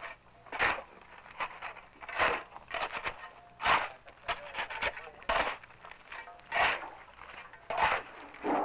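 A shovel scraping and digging into sandy, gritty ground, one stroke about every second and a half.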